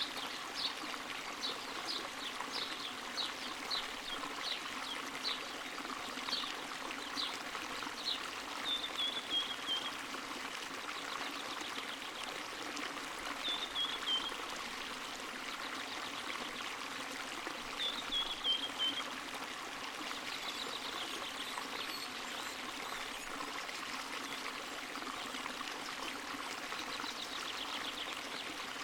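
Spring water running and trickling steadily. High chirps sound over it, repeating about twice a second for the first eight seconds, followed by a few short falling trills.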